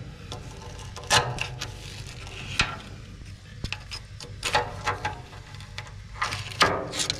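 A hand tool scraping and prodding at flaking rust scale and resin in the sump of a steel boat hull, in irregular scratchy strokes with a few louder scrapes. The resin poured into the sump has failed, and rust has formed beneath it.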